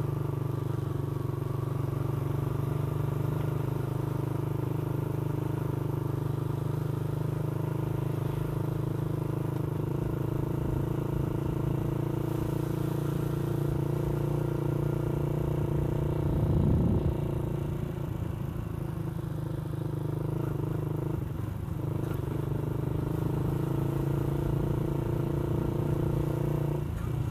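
Motorcycle engine running at a steady cruising speed, an even hum that holds nearly unchanged, with a brief louder swell about 17 seconds in.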